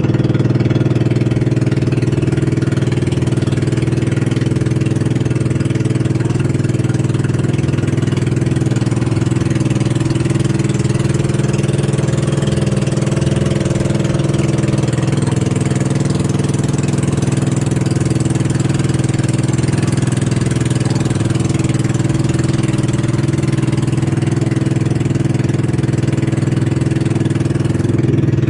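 Engine of a motorized outrigger fishing boat (bangka) under way, running steadily with a constant drone that holds the same pitch throughout.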